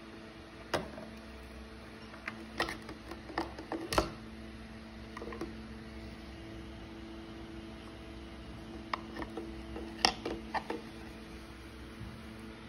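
Sharp plastic clicks and knocks of a handheld dust mite vacuum's dust cup and filter being taken apart and handled, in two clusters, the loudest about 4 s and 10 s in. A steady low hum runs underneath.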